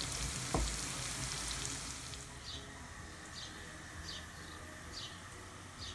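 Sliced onions sizzling and crackling in hot oil in a frying pan while being stirred with a spatula, with a knock of the spatula against the pan about half a second in. The sizzle fades after about two seconds, and a short high chirp then repeats roughly once a second.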